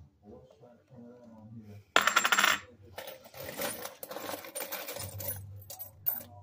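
Silver coins and rounds clinking together as a hand rummages in a bag of silver: a sudden loud jingle about two seconds in, then a run of lighter clinks and a few sharp ones near the end.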